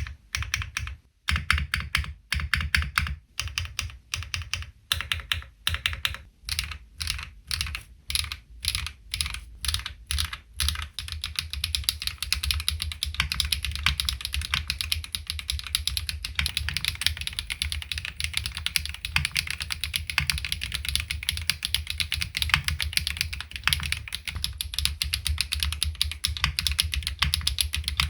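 Typing on a LINWORKS ORCA65 65% bottom-mount custom mechanical keyboard with HMX Duck Duck linear switches, a PC plate and no foam. Separate, spaced keystrokes for about the first ten seconds, then steady fast typing.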